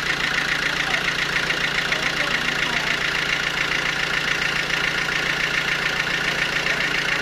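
Sawmill machinery running steadily: a constant machine hum with a fast, even pulsing.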